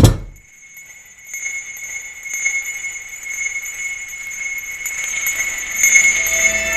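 A heavy thud at the very start, then a sustained high, bell-like ringing drone from the film's score that slowly swells in loudness.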